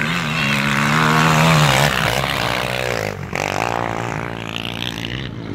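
Quad ATV engine revving hard under load as it climbs the dirt hill and passes close by, its pitch rising and falling with the throttle; loudest about a second or two in.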